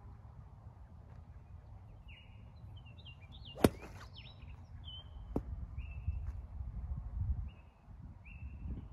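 A golf club striking a ball once with a sharp crack a little over a third of the way in, followed by a much fainter click about two seconds later. A bird chirps over and over in short repeated notes, over a low rumble that swells in the second half.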